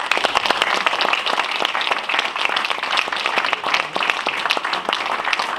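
Audience applauding: a steady, dense patter of many people's hand claps.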